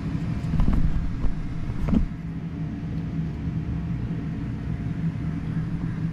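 Steady low machinery hum and rumble, with a few light clicks in the first two seconds as meter probe leads are set on a run capacitor's terminals.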